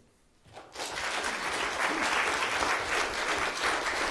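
Audience applauding, starting about a second in after a brief hush.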